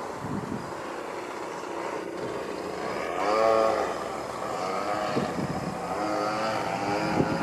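CRRC 26cc two-stroke gasoline engine and propeller of a Katana fun-fly RC model plane flying aerobatics. The pitch swells and drops several times with throttle and passes, and it is loudest about halfway through.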